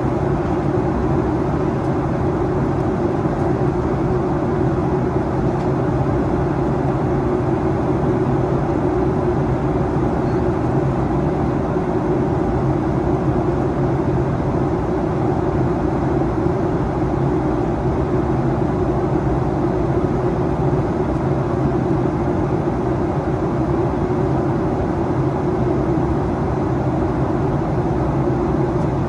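Steady cabin noise inside a Boeing 737-800 in flight on descent: the low, even rush of airflow and the CFM56 engines, with a faint steady hum and no change in level.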